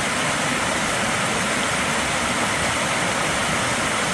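Steady rushing water of a forest stream or small cascade.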